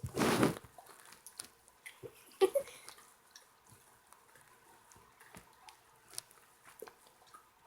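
A dog licking and chewing at peanut butter smeared on its nose and mouth: scattered wet, sticky licks and lip-smacks. A short, loud burst of noise comes right at the start, and a couple of louder smacks come about two and a half seconds in.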